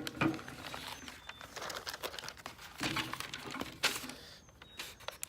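Paper being torn and crinkled by hand, in irregular rustling bursts.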